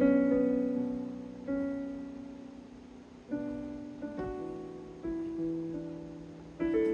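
Casio CT-S1 portable electronic keyboard played slowly: chords and notes struck about every second or two, each left to ring and fade before the next.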